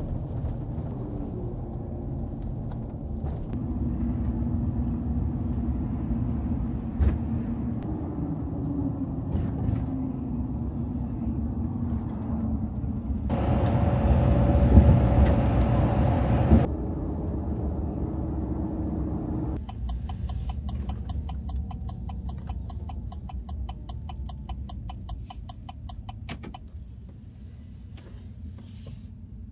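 Car driving, heard from inside: steady engine and road rumble, with the engine note rising and falling. A louder rushing stretch comes partway through, and a fast regular ticking starts in the later part.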